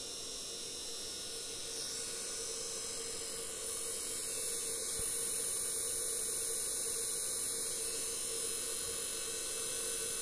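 Plettenberg HP 290 brushed electric motor running unloaded while its new brushes are run in, giving a steady hum with a high brush hiss. It gets a little louder and brighter about three and a half seconds in.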